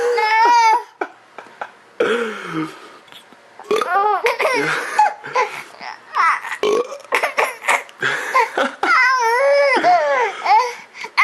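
Baby squealing, babbling and laughing in high-pitched bursts, with a short low burp among them.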